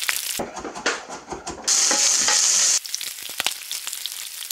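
Skin-on pieces of fish frying in a pan, the oil sizzling and spitting with dense crackles. For about a second midway the sizzle swells into a loud, steady hiss.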